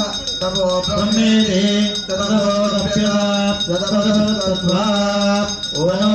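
Male voice chanting Sanskrit Vedic mantras in a melodic, held recitation.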